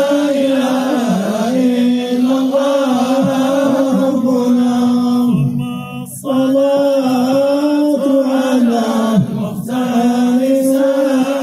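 Men's voices chanting an Islamic devotional chant in unison, drawn out on long held notes that stay near one pitch, with a brief pause for breath about six seconds in.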